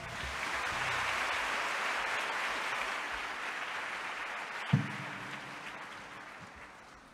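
Audience applauding, rising just after the start and then slowly fading away. About two-thirds of the way through, a single thump followed by a brief low hum.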